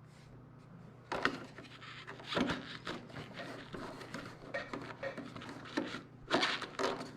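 Plastic side cover of a motorcycle being pushed and worked into place by hand: irregular scraping and rubbing with a few sharp knocks, starting about a second in.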